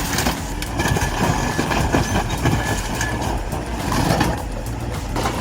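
Heavy demolition machinery crushing metal: repeated clanks, knocks and creaks of metal over a steady low engine drone, with a thin metallic squeal for a couple of seconds.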